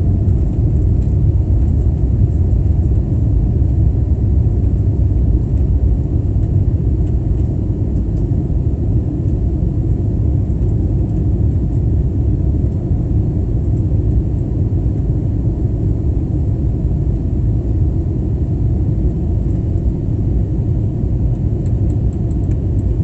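Steady low rumble of an airliner's engines and rushing air, heard inside the passenger cabin after takeoff. It eases slightly about a third of the way in.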